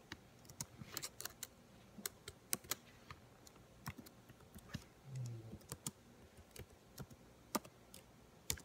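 Faint, irregular light clicks and taps of fingers typing, a few each second, with a brief low hum about five seconds in.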